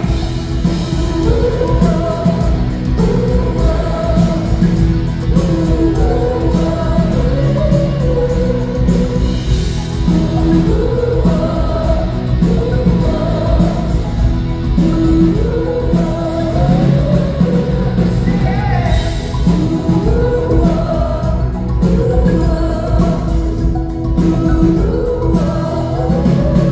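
Live pop band playing with a male lead singer, a sung melody over keyboards, drums and cymbals, recorded from the audience in a concert hall.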